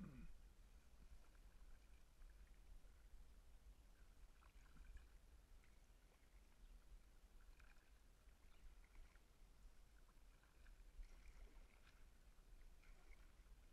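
Near silence, muffled by a sealed waterproof camera housing: a faint low rumble with faint sounds of a kayak being paddled.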